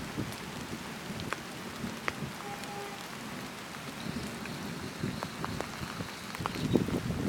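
Monsoon rain falling steadily, with many separate drops clicking close by.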